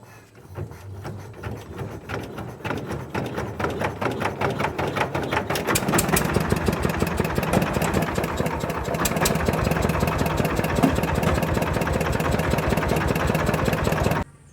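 Hand-cranked diesel engine being started: a regular pulsing beat that builds in loudness and pace as the engine catches, then runs steadily and loudly before cutting off abruptly just before the end.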